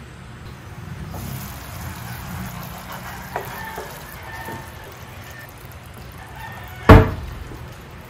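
Sauce simmering in a frying pan while a wooden spatula stirs through it, with one sharp knock about seven seconds in, the loudest sound.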